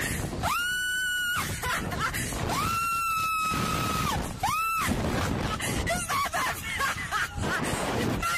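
A person screaming on a slingshot amusement ride: three high-pitched screams, the second the longest, over a steady rushing noise.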